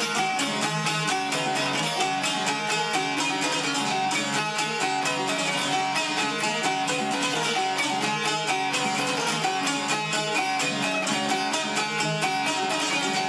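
Two long-necked lutes plucked together in a quick, even picking rhythm, playing an instrumental tune.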